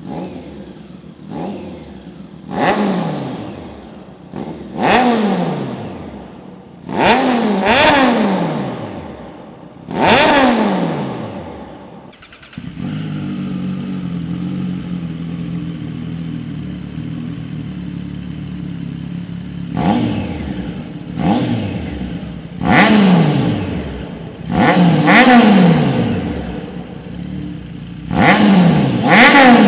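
Triumph Street Triple RS 765 cc inline three-cylinder engine through an SC-Project exhaust, revved in a series of sharp throttle blips, each climbing quickly and falling back toward idle. About halfway it settles into a steady idle for several seconds, then the blips start again, some in quick pairs.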